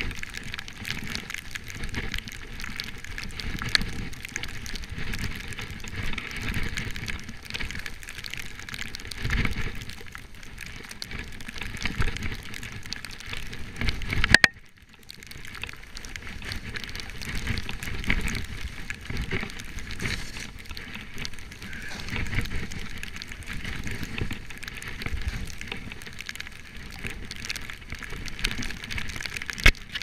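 Skis sliding and scraping over snow on a downhill run, with wind rumbling across the action camera's microphone. A sharp click about halfway through is followed by a brief lull.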